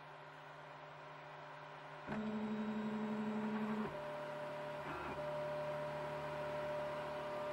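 3D printer running, its stepper motors giving steady whining tones that change pitch as the print head's moves change speed. A louder, lower whine starts about two seconds in and, about two seconds later, gives way to a higher steady tone.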